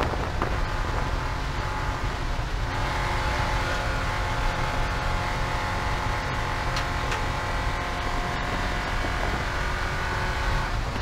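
Porsche 944 Spec race car's four-cylinder engine under racing load, heard from on board with road noise. About three seconds in, it settles into a steady, unchanging pitch, held until shortly before the end, with scattered knocks before and after.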